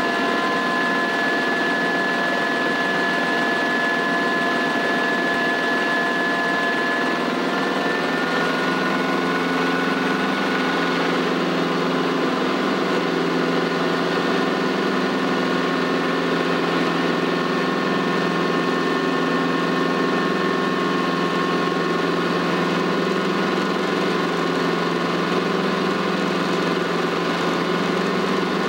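Schweizer 300CBi helicopter running, its four-cylinder piston engine and rotors heard from inside the cockpit as a steady drone with a whine; the whine's tones shift pitch about eight seconds in.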